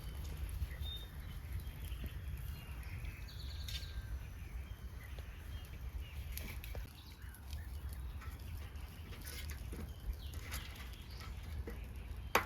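Outdoor ambience: a steady low rumble, with a few faint bird chirps in the first few seconds and scattered light clicks and knocks later on.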